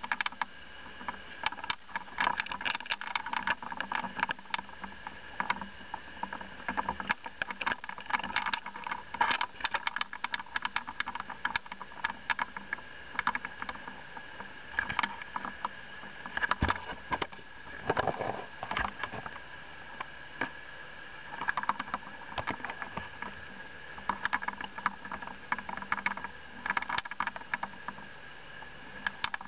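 A small boat's motor running steadily with a high whine, under frequent crackles and clicks.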